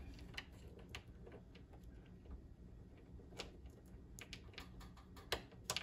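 A few scattered light clicks and ticks as a screw is started by hand on a pinball topper's mounting bracket, fingers turning it into the hole, over a faint steady low hum.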